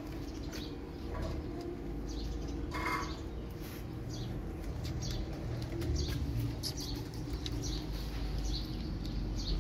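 A cat crunching dry kibble: short crisp clicks at irregular moments, over a steady low rumble of wind buffeting the microphone.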